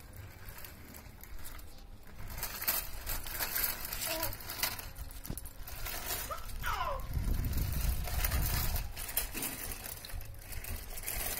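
Baby walker's small plastic wheels rolling and rattling over a concrete floor, with scattered clicks and knocks. A short falling squeak about six and a half seconds in, and a low rumble in the middle.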